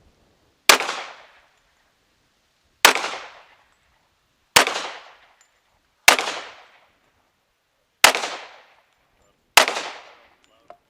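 Six pistol shots fired singly at an unhurried pace, about one every one and a half to two seconds, each followed by a short decaying echo.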